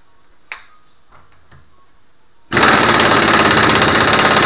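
Impact wrench hammering in rapid blows for about two seconds, starting a little past halfway and cutting off sharply, as it runs down and tightens the axle nut on the front hub. A single knock about half a second in.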